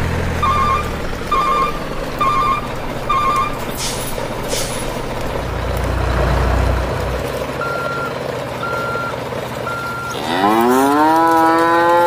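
Electronic beeping like a truck's reversing alarm, short beeps about every 0.7 s for the first few seconds, then slower higher beeps about once a second, over a steady rushing noise. About ten seconds in a cow moos once, a long call that rises and then holds for about two seconds.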